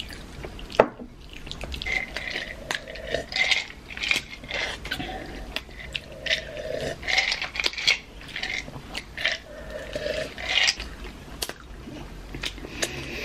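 Close-up chewing and wet mouth sounds of people eating taquitos, a run of short, irregular smacks and clicks.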